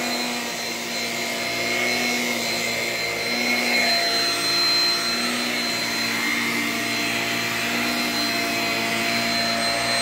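Shark Rocket self-cleaning stick vacuum running on carpet: a steady motor whine with a high tone over the rush of air, its note wavering slightly as the floor head is pushed back and forth.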